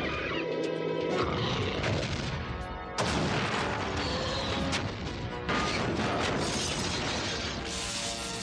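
Cartoon action soundtrack: dramatic music under battle sound effects of crashes and booms, with sudden loud crashes about three seconds in and again about five and a half seconds in.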